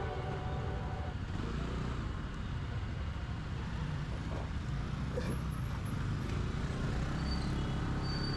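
Motorcycle running at low speed through busy street traffic, heard from the rider's seat: a steady low engine and road rumble with traffic noise around it.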